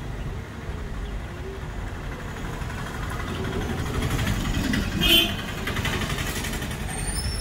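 Steady low rumble of vehicle engines and street traffic, with one short, sharp sound about five seconds in.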